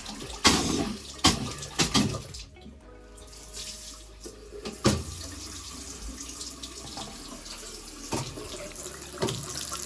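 Water running from a tap into a basin, steady, with a few sharp knocks and clatters in the first couple of seconds and one more about five seconds in.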